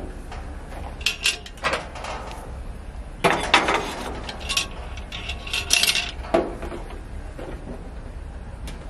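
Metal clanks and clinks of a cast-iron Dutch oven and its wire bail handle as it is lifted and set down on the grill, with the loudest clatter about three and a half seconds in, and a duller knock a little after six seconds.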